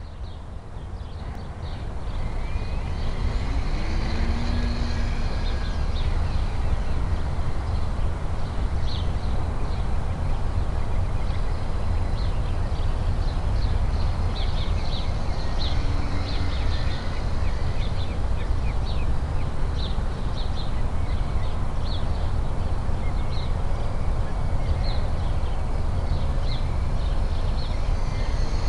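Steady low rumbling noise of wind buffeting a small hat-mounted keychain camera's microphone, swelling up over the first two seconds and then holding, with brief high chirps scattered through it.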